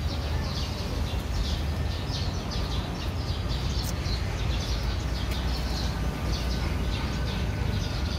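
Small birds chirping over and over in the background, short high chirps over a steady low rumble.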